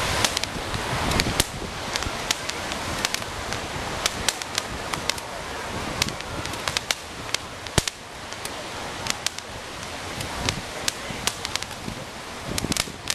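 Fireworks going off: a continuous crackling hiss with dozens of sharp, irregular cracks and pops. One of the sharpest cracks comes a little past halfway.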